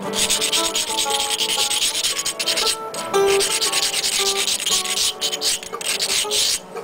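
Rasping scrape of an edge being abraded along a percussion-knapped obsidian blade, in repeated strokes with brief pauses. A guitar song plays underneath.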